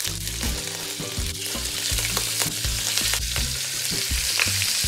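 Raw chicken pieces sizzling steadily in hot olive oil and butter in an enameled pot as more pieces are laid in fat side down to brown.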